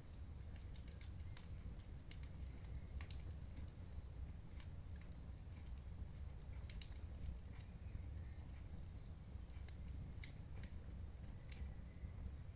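Wood fire burning in a fireplace, with irregular crackles and pops over a steady low rumble.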